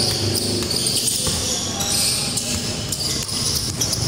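Basketball game sounds: the ball bouncing repeatedly on the court against a steady background din.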